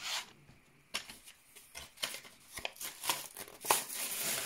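A freshly bought pencil box being ripped open: a run of short, sharp tearing and crinkling bursts, ending in a longer, louder tear near the end.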